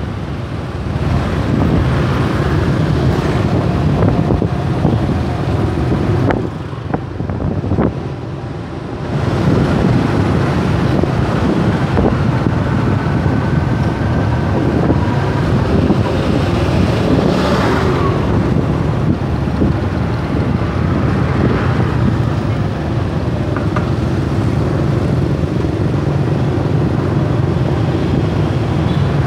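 Steady road noise of a motorbike ride in dense scooter traffic: wind buffeting the microphone over the low hum of motorbike engines. The noise drops for about two seconds some seven seconds in, and a passing vehicle swells briefly about halfway through.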